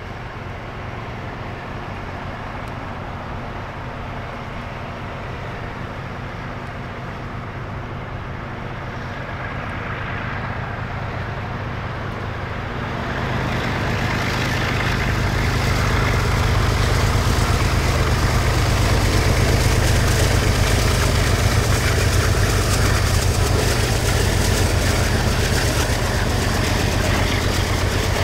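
Diesel locomotives leading a freight train of auto rack cars, a steady low rumble that grows louder about halfway through as the locomotives pass, then the rolling of the auto rack cars going by.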